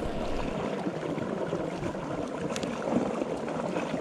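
Steady rushing, gurgling sound of moving water, with a few faint clicks.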